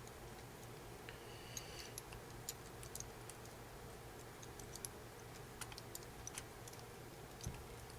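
Small, faint clicks and ticks at irregular intervals, made by handling the small screw and tool that retain the hinge pin in the RC truck's steering block.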